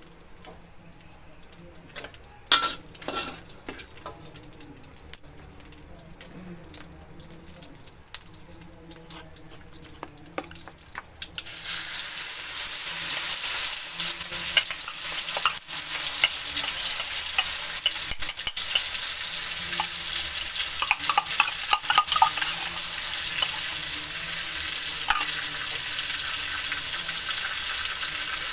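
Metal spatula clicking and scraping in a wok of hot oil. About eleven seconds in, ground chili, tomato and shallot spice paste hits the oil and starts sizzling loudly, and the spatula goes on scraping and stirring through the frying paste.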